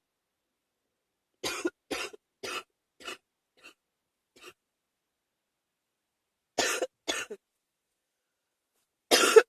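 A person with a cold coughing: a run of about six coughs, each fainter than the last, then a louder pair of coughs and, near the end, another pair.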